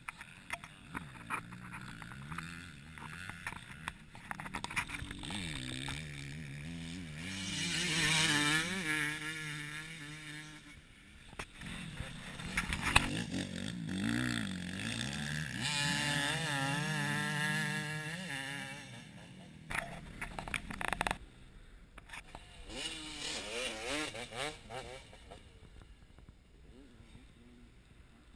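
Motocross dirt bikes passing on the track, their engines revving up and down through the gears. The loudest passes come about 8 and 16 seconds in, with a fainter one near the end. A brief sharp knock sounds about 13 seconds in.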